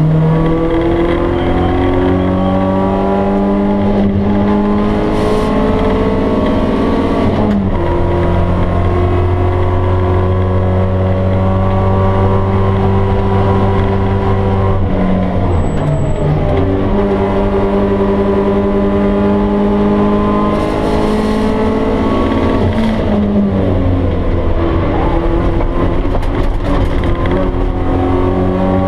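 BMW E30 318is's stock 1.8-litre four-cylinder engine running loud inside the cabin. Its pitch climbs steadily through each gear and drops at gear changes about a quarter of the way in, midway, and about three quarters through.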